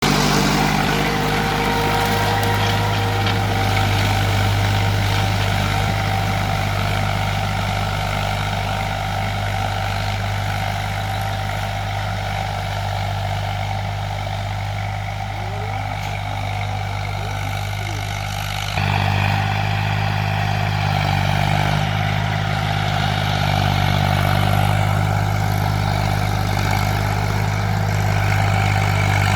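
Diesel tractor engine running steadily with a deep, even hum. It gets suddenly louder about two-thirds of the way in.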